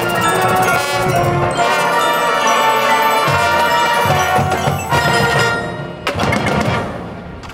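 Marching band playing, with mallet percussion such as glockenspiel and bells ringing out over the winds. About six seconds in the music closes on an accented hit that rings and fades away.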